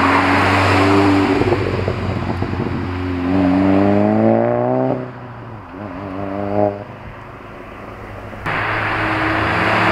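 SEAT Leon Cupra 280's 2-litre turbo four-cylinder through a Scorpion cat-back exhaust, driving past under acceleration: the engine note climbs in pitch for about two seconds, falls away, rises briefly once more, then a car's engine and road noise come up loud again near the end.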